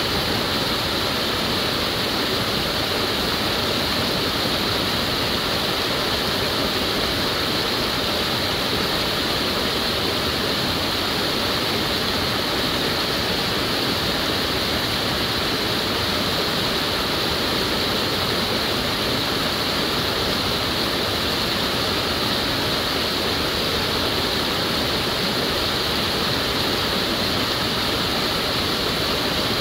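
Creek water rushing steadily over a small rocky cascade.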